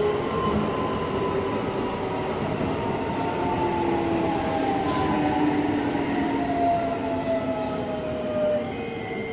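Keisei 3050-series electric train heard from inside the car: the VVVF inverter whine, several tones together, falls steadily in pitch over the running and rail noise as the train slows. A brief hiss comes about halfway through.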